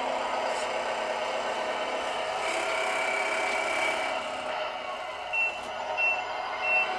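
Truck tractor sound-effect module playing a steady engine-running sound, then reversing beeps starting about five seconds in, three short high beeps about 0.7 s apart.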